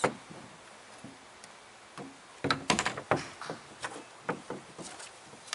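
Epoxy resin being stirred in a plastic mixing cup: the stick clicks and taps against the cup. There is a sharp click at the start, a quick run of clicks about two and a half seconds in, then scattered single ticks.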